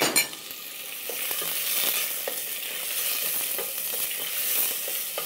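Diced mirepoix and chopped garlic sizzling steadily in oil in a stainless steel pot while being stirred with a wooden spoon, lightly frying without browning. A few sharp clicks come right at the start.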